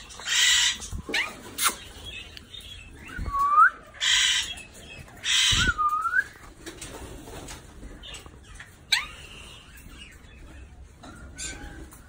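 Alexandrine parakeets calling: three loud, harsh screeches in the first six seconds, mixed with short whistled notes that swoop down and back up. One more sharp call comes near the nine-second mark.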